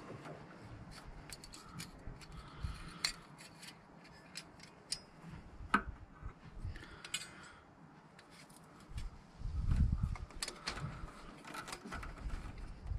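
Light clicks and metallic scrapes as the round spring cover of a carburettor's automatic choke is handled and turned, with a sharper click about six seconds in and a louder low rumble about ten seconds in.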